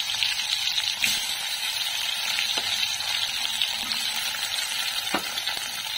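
Sliced shallots frying in hot oil in a wok: a steady crackling sizzle, with a couple of sharper pops.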